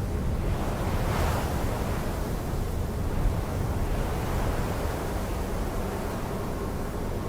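A steady low rushing rumble of noise, swelling briefly about a second in, with faint held tones entering near the end.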